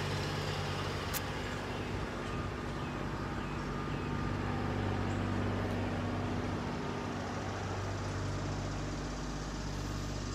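A motor vehicle's engine idling steadily, a constant low hum.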